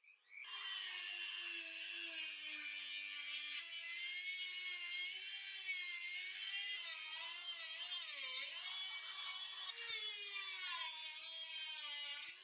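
Dremel rotary tool with a thin abrasive cut-off wheel spinning at high speed and cutting into a metal bolt, a high-pitched whine that wavers and sags in pitch as the wheel bites under load. It stops suddenly near the end.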